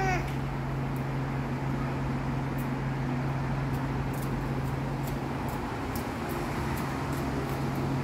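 A steady low machine hum over a continuous background hiss, with a few faint clicks.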